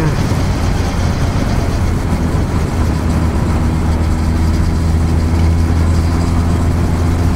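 Kawasaki Ninja ZX-14R's inline-four engine, fitted with a Yoshimura slip-on muffler, running at a steady cruising speed with an even drone that holds one pitch.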